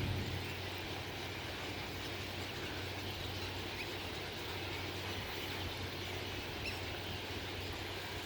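Steady outdoor background: a low hum of distant traffic, with a few faint, brief bird chirps.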